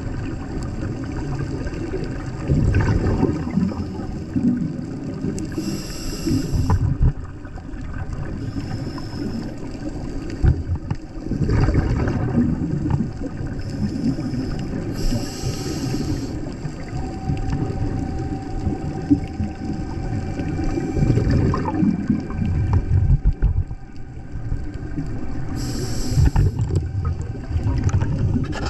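Underwater sound picked up by a submerged camera: a steady low rumble and gurgle of moving water, with three short hissing bursts about ten seconds apart.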